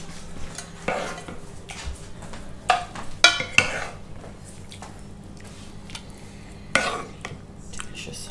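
Serving spoon scooping thick beef stew out of a black roasting pan into a white enamel pie dish, with a few scattered scrapes and knocks of the spoon against the pans.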